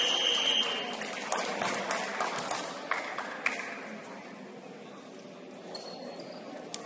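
A long, high, steady whistle-like signal blast halting play in a basketball game, cutting off under a second in. It is followed by scattered sharp knocks of feet and ball on the hardwood court, which die away into the hum of a large gym.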